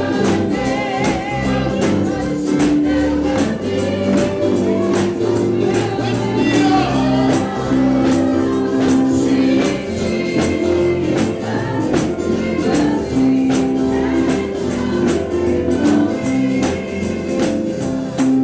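Live gospel praise music: voices singing over a steady tambourine beat and held instrumental chords.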